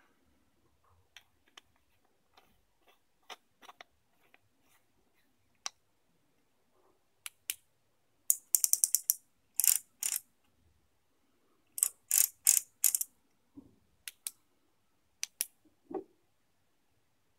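Aluminium LED flashlights being handled and put together: scattered small metal clicks, then several bursts of rapid, high, ratchet-like clicking, as of threaded metal parts being twisted, with a few more single clicks and a soft knock near the end.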